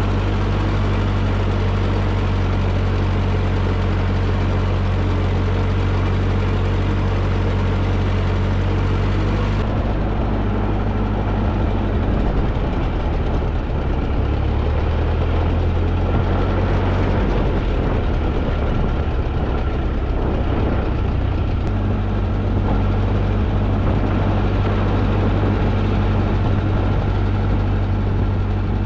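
1944 Ford 2N tractor's four-cylinder flathead engine running on its freshly rebuilt carburetor, its speed shifting about ten seconds in and settling back later.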